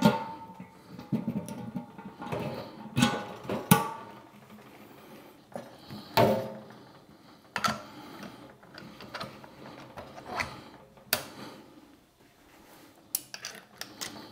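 Handling of a stainless steel brewing pot's lid and its hose and pump fittings: irregular clanks and clicks, several with a short metallic ring. The loudest knocks come right at the start and about three to four and six seconds in.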